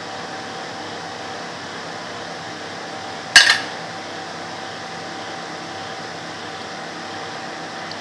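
Steady room hum like a fan, with a faint constant tone. About three and a half seconds in comes a single sharp clack, a kitchen utensil knocking on a hard surface.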